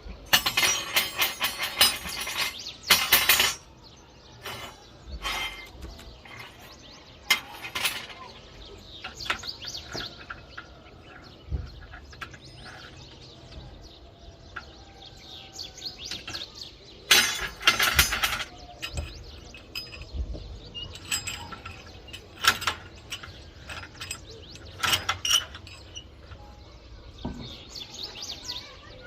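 Bursts of metallic clanking and clinking, with short ringing after the strikes, from steel parts being handled and worked. The loudest clusters come in the first few seconds and again about two-thirds of the way through.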